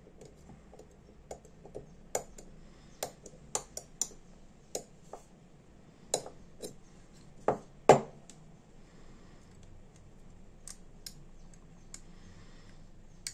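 Thin steel dental pick clicking and scraping against the metal parts of a Ronson Premier butane lighter as it works at the lighter's metallic gas filter: scattered small metallic clicks, with two louder ones close together about eight seconds in.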